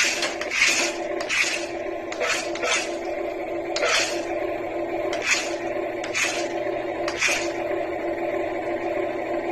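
A small electric toy motor running with a steady hum, with about nine short scraping noises at uneven intervals over it.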